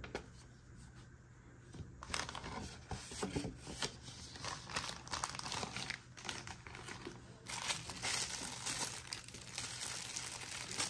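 Thin clear plastic bag crinkling as gloved hands unwrap a pair of eyeglasses. The rustling is faint at first, becomes steady about two seconds in, and is loudest about two-thirds of the way through.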